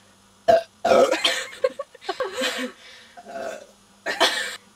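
A girl's loud burps, several in a row with short gaps, brought up by a big glass of fizzy Irn Bru downed in one go.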